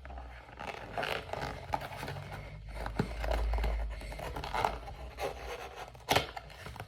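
Trading card box packaging being torn and scraped open by hand: irregular tearing and rustling, with a sharp snap about six seconds in.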